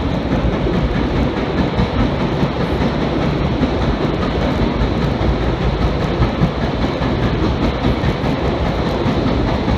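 Vintage R1/9 subway car running through a tunnel: a steady noise of steel wheels on the rails.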